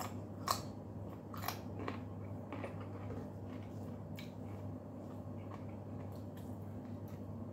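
Crisp crunching of a raw carrot stick being bitten and chewed, a sharp crunch every half second or so that grows fainter after about four seconds, over a steady low hum.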